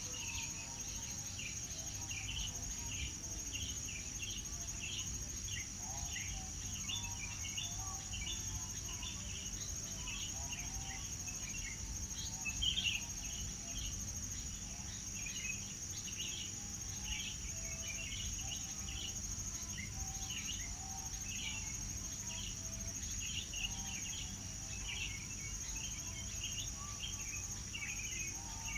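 Birds chirping and calling in many short, overlapping notes over a steady, high-pitched insect drone. One call stands out louder about halfway through.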